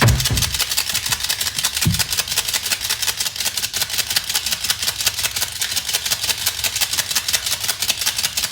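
A fast, even mechanical ticking rattle, about ten clicks a second, with a low thump at the start and another about two seconds in.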